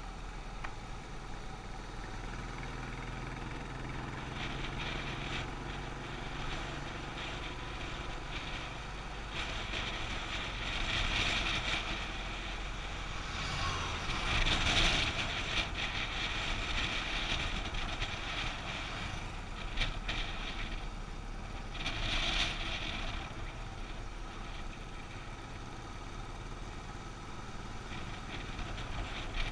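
Motorcycle on the move: wind rushing over the microphone with the engine running underneath. The rush gets louder about halfway through as the bike passes a truck, and swells briefly again a few seconds later.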